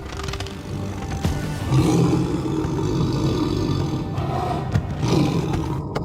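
A tiger roaring, one long roar starting a little under two seconds in, over film score music.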